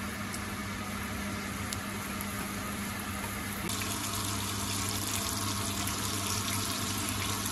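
Hot oil sizzling in a frying pan as papad fry, then as rounds of potato, aubergine and cauliflower shallow-fry. The sizzle gets brighter and a little louder about four seconds in. A steady low hum runs underneath.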